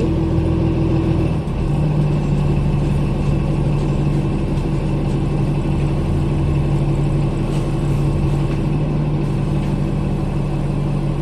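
Engine and road noise heard from inside a moving bus: a steady drone with a humming engine note that changes pitch about a second and a half in.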